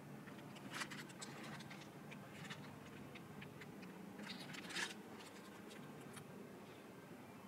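Faint handling noises of an unboxing: scattered soft clicks and rustles of packaging and parts being moved, the loudest about five seconds in, over a steady low hum.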